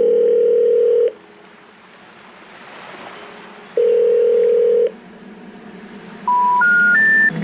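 Telephone line tones: two steady one-second ringing tones, then near the end three short tones stepping upward, the special information tone that signals an intercepted call, such as a number not in service. A faint hiss lies between the tones.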